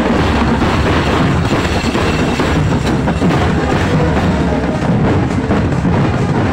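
Marching drums, including a strapped-on side drum, playing a loud, continuous beat.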